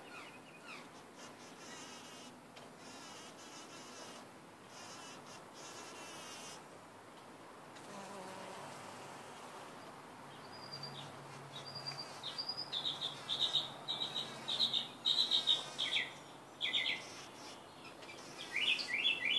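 Bumble bee wings buzzing with a faint low hum as it flies about the flowers, most audible around eight to twelve seconds in. From about eleven seconds on, rapid high chirps in short repeated runs are the loudest sound.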